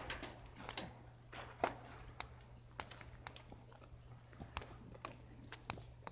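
Scattered soft clicks, scuffs and crunches at irregular moments as a horned goat nuzzles and mouths right at the phone, with steps on frozen, straw-strewn ground.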